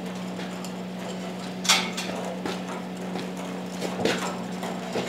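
Manual pallet jack moving a heavy steel forge-press base across a concrete floor, with a few irregular clunks and knocks from the jack and its load, the loudest about a second and a half in. A steady low hum runs underneath.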